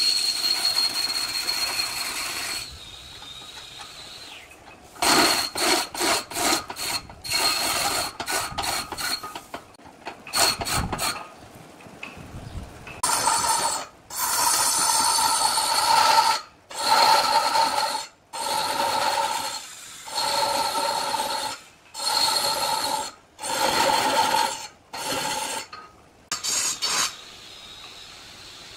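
A tool rasping against wood in repeated strokes: short, choppy strokes in the first part, then a run of about eight longer strokes of roughly a second each with brief pauses between.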